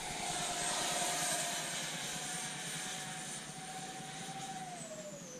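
Twin 64 mm electric ducted fans of a Freewing F-14 Tomcat RC jet whining in flight overhead: a steady high-pitched whine, loudest about a second in, that drops in pitch near the end as the jet passes and moves away.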